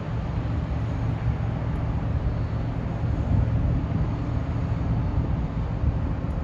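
Steady low rumble with a faint constant hum underneath: harbor ambience of ships and machinery.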